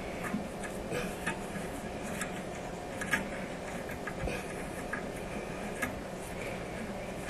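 Toilet tank-to-bowl bolts being worked loose with a wrench: scattered small metallic clicks and ticks at an irregular pace.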